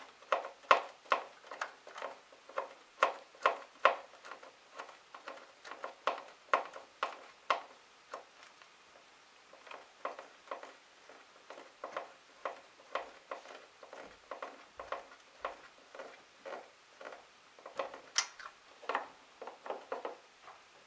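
A screwdriver tightening the screw at the bottom of a motorcycle headlight rim: a run of sharp clicks, about two a second, softer in the middle and louder again near the end.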